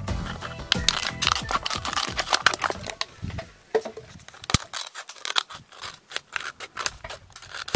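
Scissors cutting around a thin plastic water bottle: irregular sharp snips and crackles of the plastic, stopping and starting.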